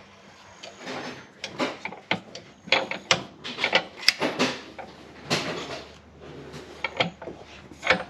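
Irregular metal clicks, knocks and short scrapes from parts being handled and set up in a bench vise to press a bearing's sleeve out.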